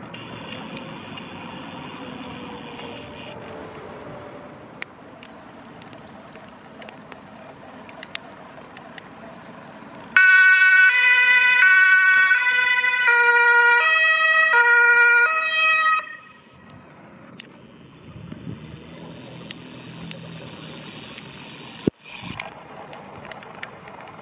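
Hänsch Typ 624 electronic two-tone siren of an MG ZS EV emergency car, switched on about ten seconds in and stepping back and forth between two pitches for about six seconds before cutting off suddenly. Before and after it, the quiet electric car rolls over paving stones, with little motor sound and a sharp click near the end.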